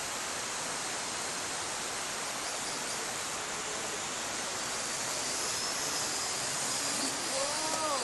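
Steady rushing hiss of a small quadcopter drone's propellers, heard through its onboard camera. A faint thin whine comes in after about five seconds, and a short wavering pitched sound follows near the end.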